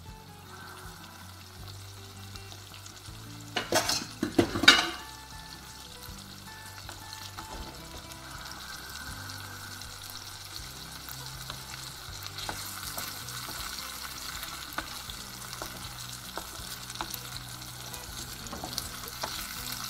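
Beaten eggs and pork frying in a pan, sizzling and crackling steadily as the eggs set. A short cluster of sharp knocks about four seconds in stands out as the loudest sound.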